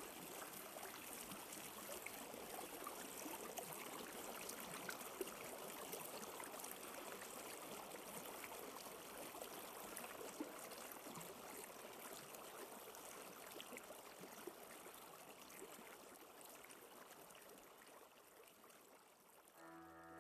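Faint running water, like a small stream trickling, with fine crackles throughout; it fades down near the end.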